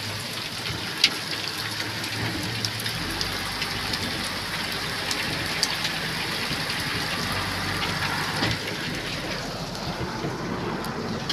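Steady rain falling and pattering, heard from inside the cab of a JCB backhoe loader, with a low steady hum underneath.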